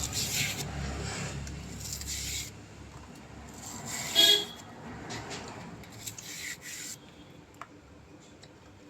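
Kitchen knife scraping and cutting giant taro (borkochu) stems, a run of rough rasping strokes that thin out and stop about seven seconds in. A short, loud beep-like tone about four seconds in stands out above the scraping.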